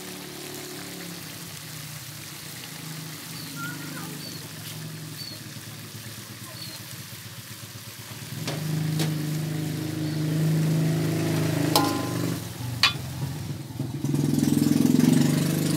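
Chicken soup bubbling in an aluminium pot on a gas stove, under a steady low mechanical hum that grows louder about halfway through. Two sharp clicks come near the end.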